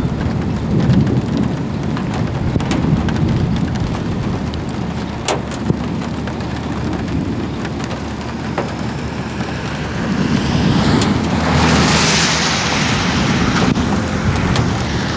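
Rain from a tornadic thunderstorm falling steadily, with sharp drops ticking close by, over a low rumble. About ten seconds in, a rushing hiss swells up and fades over a few seconds.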